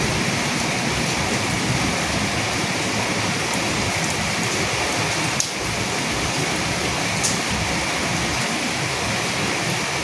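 Steady rain falling, an even hiss of drops on surfaces, with a single sharp tap about halfway through.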